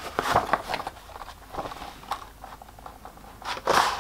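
Cardboard toy box being handled and its tabbed flaps pulled open: scattered small clicks and rustles of card, with a louder scrape of cardboard near the end.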